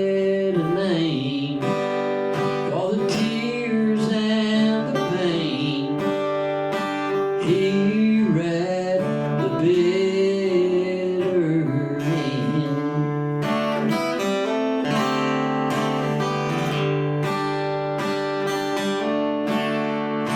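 Acoustic guitar strummed in a country song, with a man singing over it for roughly the first two-thirds, then the guitar carrying on alone with steady, even strums.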